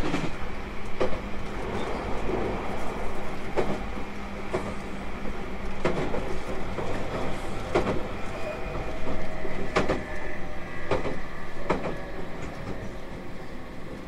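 Running sound inside a JR Kyushu 813 series electric train: the wheels click over rail joints every second or so over a steady rumble. In the second half a steady whine from the Toshiba GTO-thyristor VVVF traction equipment joins in.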